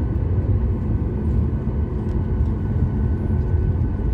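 Cabin noise inside a Boeing 737 airliner taxiing on the ground: a steady low rumble from the jet engines at taxi power, with a faint steady high whine above it.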